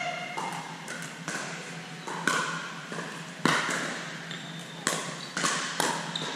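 Pickleball rally: a string of sharp pops from paddles striking the hollow plastic ball, about five hits from roughly two seconds in, each ringing briefly in the large gym.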